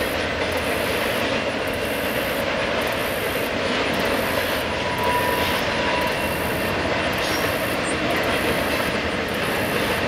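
Intermodal freight train of trailers on flatcars rolling steadily across a bridge: a continuous rumble of steel wheels on rail.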